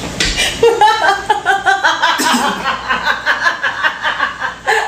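A woman laughing hard, in a long run of quick, rhythmic ha-ha pulses starting about a second in.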